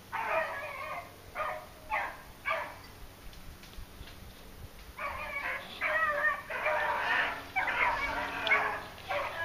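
A pack of beagles baying as they trail a rabbit on its scent: short barks for the first few seconds, then after a brief lull several dogs give longer, overlapping bays together.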